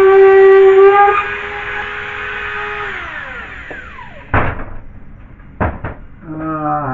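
A high-speed power tool running at a steady high pitch, switched off about a second in and spinning down over the next two seconds, followed by a few sharp knocks.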